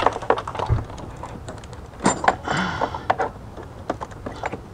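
Hands working among metal brake lines and their fittings in a car's engine bay: a string of small clicks and taps, with a short scraping rustle about two seconds in.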